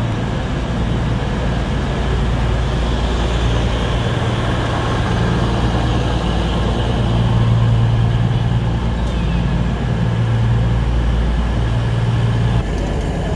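CrossCountry Voyager diesel multiple unit standing at a platform with its underfloor diesel engines idling: a steady low hum that swells and eases every few seconds.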